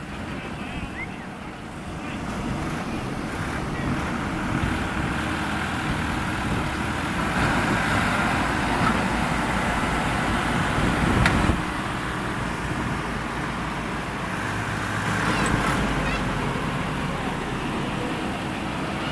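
Diesel engines of heavy machinery running steadily under load. The sound grows louder about two seconds in, with a brief louder peak near eleven seconds.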